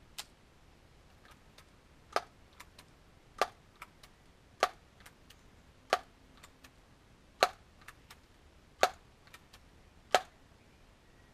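Daisy PowerLine 901 multi-pump air rifle being pumped: a sharp clack as the forearm pump lever closes, about seven strokes roughly every 1.3 seconds, with lighter clicks between them as the lever opens.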